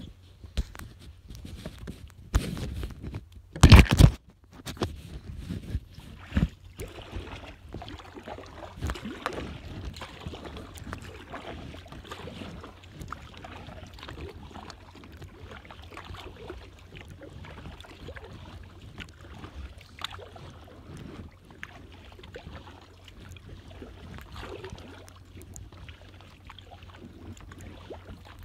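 Kayak being paddled: water splashing and dripping around the hull with small knocks, and a loud sharp knock about four seconds in.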